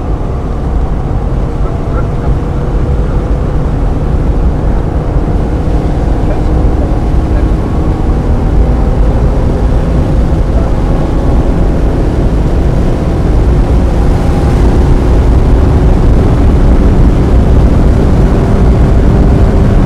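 1995 Mazda Miata's 1.8-litre four-cylinder engine pulling under load, its pitch climbing slowly and steadily with no gear change, over a heavy low rumble of road and wind noise.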